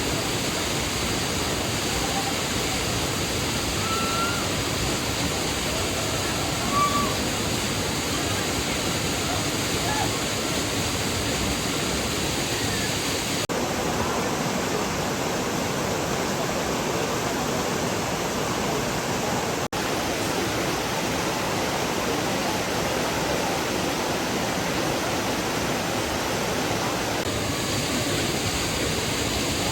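Waterfall pouring steadily, a constant, even rush of falling water.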